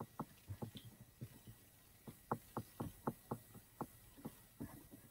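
Faint light taps. A few come scattered at first, then a steady run of about four a second through the middle, and a few more near the end.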